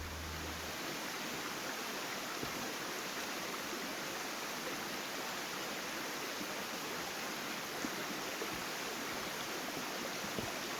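Steady rushing of a flowing creek. A low rumble, from a truck crossing the road above, fades out in the first second.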